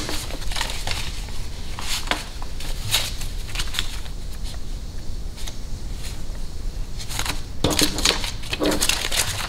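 Paper banknotes rustling and flicking as hands count and sort a stack of bills, a run of irregular crisp snaps and rustles that grows louder near the end.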